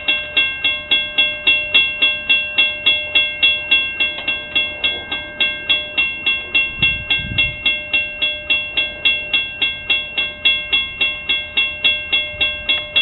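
Railroad grade-crossing warning bell ringing steadily and fast, about three metallic strikes a second, as a train approaches. A brief low rumble comes about seven seconds in.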